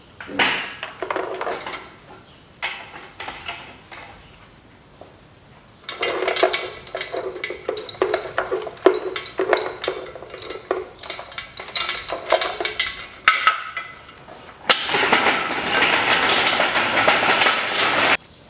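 Steel lifting chain clinking and rattling as it is handled and unhooked from the engine. The links clatter in irregular bursts, then rattle without a break for about three seconds near the end.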